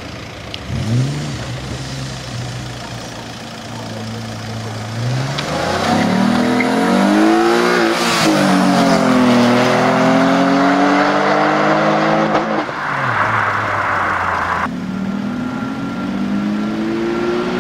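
Alfa Romeo 156's engine idling, blipped once about a second in, then revved up, held high for several seconds and let fall back to idle, followed by a short hiss. It revs up again near the end.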